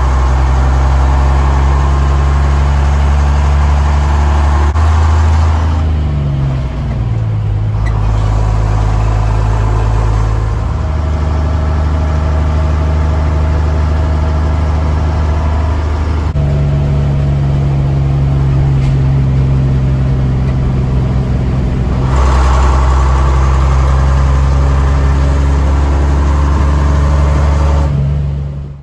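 Gardner 180 six-cylinder diesel engine of a classic Atkinson lorry, heard from inside the cab while driving. The revs fall away about six seconds in, and the engine note changes several more times, around eleven, sixteen and twenty-two seconds in, as the gears are changed.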